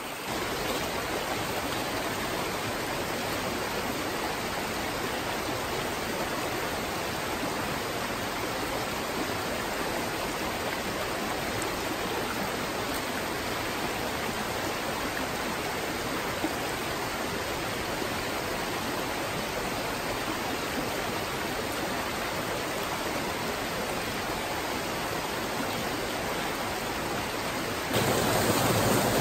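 Small woodland brook rushing steadily over rocky riffles. Near the end the rush jumps louder and brighter, from a small waterfall close by.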